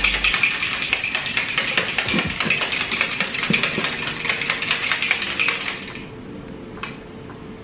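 A plastic protein shaker bottle shaken hard to mix a protein shake, a fast rattling clatter that stops about six seconds in, followed by a single click.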